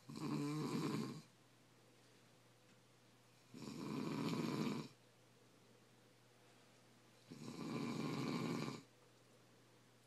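Snoring: three snores about three and a half seconds apart, each lasting just over a second.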